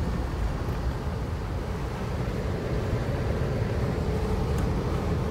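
Vehicle driving: a steady low rumble of engine and road noise.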